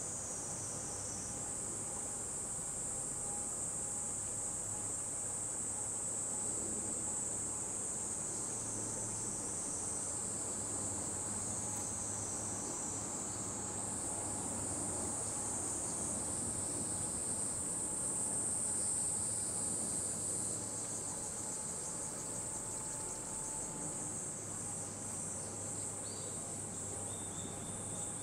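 Insects shrilling in a steady, high-pitched chorus from the trees and reeds along the bank, swelling a little partway through, over a faint low hum.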